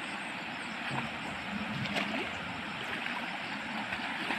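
Shallow rocky river flowing steadily, with a few light splashes from someone wading through the water.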